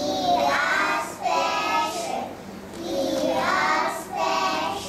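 A group of young nursery children singing an action song together in unison, their high voices coming in short phrases with brief breaks between them.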